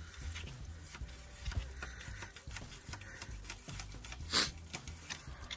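An old transmission dipstick poked into the tubes of a radiator core to clear blockages: light, irregular metal ticks and scrapes, with one sharper scrape about four seconds in.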